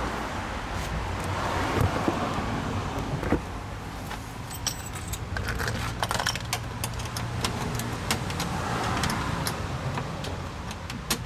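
Light metallic clinks and rattles of hardware and hand tools as a car's plastic splash guard is worked loose from the wheel well. There are a couple of sharper knocks early on, then from about halfway a run of irregular small clicks.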